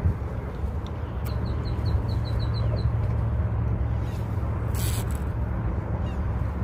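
Wind buffeting the microphone with a steady low rumble. A quick run of about eight high ticks comes a little over a second in, and a short hiss about five seconds in.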